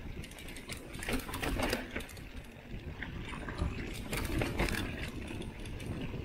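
Mountain bike rolling down a rough dirt trail: the rear freehub buzzes while coasting, and the tyres crunch and the bike rattles over bumps in irregular clicks and knocks.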